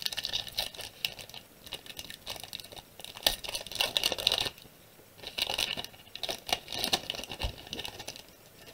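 Foil booster-pack wrapper of a Pokémon trading card pack being crinkled and torn open by hand, in several short spells of crackling rustle with pauses between.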